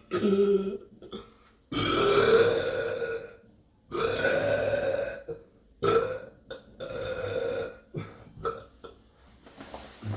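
A person burping deliberately and repeatedly: a string of loud belches, the longest about two seconds in and lasting over a second, followed by shorter ones and a few small burps near the end.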